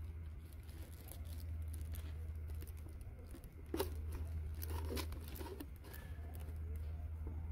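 Rustling and crackling of dry leaves and twigs on the ground as macaques shift and groom, with a cluster of sharp crackles about halfway through, over a steady low hum.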